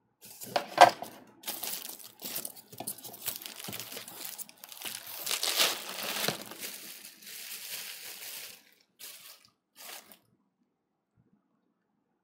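Packaging being handled: polystyrene foam inserts pulled out of a cardboard box and bubble wrap crinkling as it is pulled off the unit, in irregular rustles and crunches. The sharpest crunch comes about a second in, and the sounds stop about ten seconds in.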